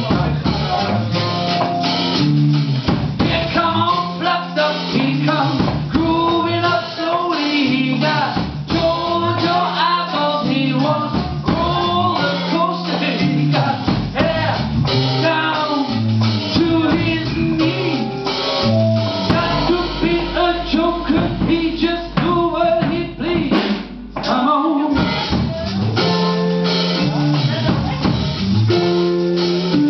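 Live band playing a rock song: a walking electric bass line, a drum kit and electric guitar, with a singing voice.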